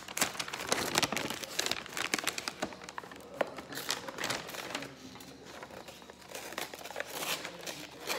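Paper wrapping crinkling and rustling as it is unfolded and pulled off a small box, with many small crackles. It is busiest in the first few seconds, then eases off.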